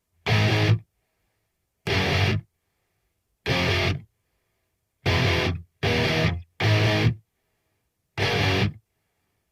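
Background music: distorted electric guitar playing short, loud chord stabs, about seven of them, each cut off into silence.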